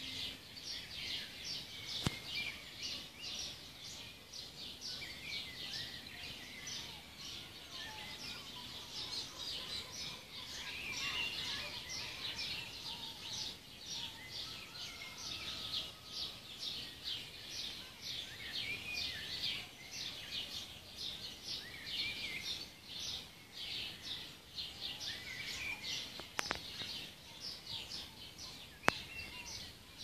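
Morning chorus of many small birds: a dense, continuous stream of short high chirps and twitters, several overlapping every second. A few sharp clicks stand out near the end.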